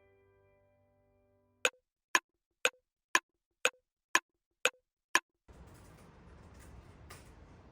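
A fading chime, then seven sharp, evenly spaced clicks about half a second apart, each with a short ring, then faint room noise with small clinks.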